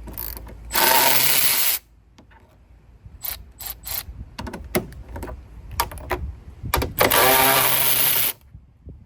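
Power tool on a 10 mm socket whirring in two runs of about a second each, undoing intake bolts, with metallic clicks and knocks of tool and parts between them.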